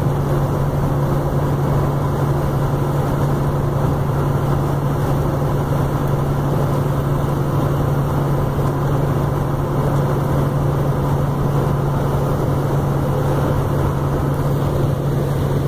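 Steady engine and road drone inside a vehicle's cab while driving along a highway, with a constant low hum beneath it.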